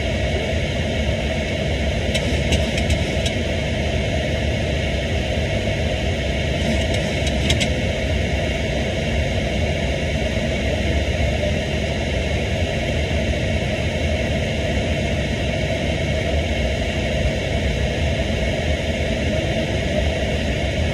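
Steady flight-deck noise of a Boeing 737-800 descending on approach: a continuous rush of airflow over the airframe mixed with engine rumble. A few faint clicks come about two and seven seconds in.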